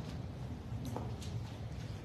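Faint clicks and light knocks of pens and papers being handled on a glass-topped table as documents are signed, over a steady low room hum.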